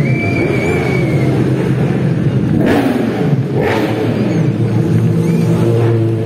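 Endurance racing motorcycles ridden slowly past, their engines revving up and down with throttle blips around the middle, then settling to a steady low running.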